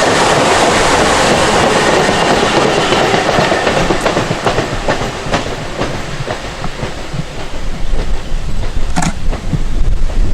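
Long Island Rail Road M3 electric multiple-unit train running on the rails, a loud rush of wheel and rail noise that thins out after about four seconds. Wheels clack over the rail joints, the clacks coming further apart, with two strong ones near the end.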